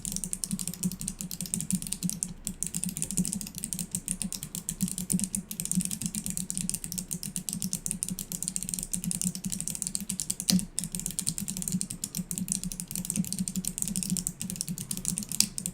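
Fast, continuous typing on a mechanical keyboard with no keycaps fitted: bare clicky Kailh Box Navy switches struck in a rapid stream of clicks, with one louder clack about ten and a half seconds in.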